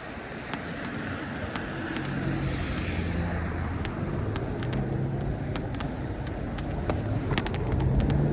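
A car's engine running close by, a low hum that grows louder towards the end, over a steady rush of wind and tyre noise, with scattered sharp clicks.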